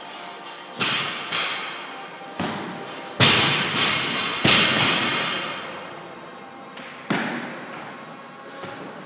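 Barbells loaded with rubber bumper plates being dropped onto lifting platforms: about six heavy thuds, each with a long echoing decay, the loudest two in the middle. Faint background music runs underneath.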